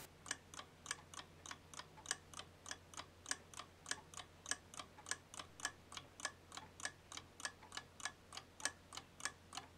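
Westclox analog alarm clock ticking steadily and faintly, about four ticks a second, over a faint low hum.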